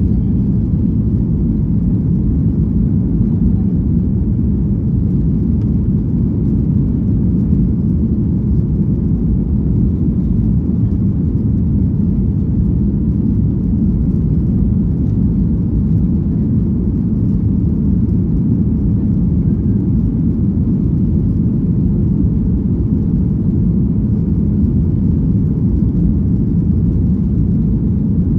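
Steady low rumble of an airliner's jet engines and rushing air, heard from inside the passenger cabin during the climb just after takeoff.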